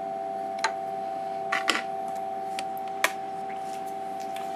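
Emco Compact 5 CNC lathe standing with its spindle stopped, giving a steady hum of a few fixed tones, with four sharp light clicks from handling at the machine during the manual tool change.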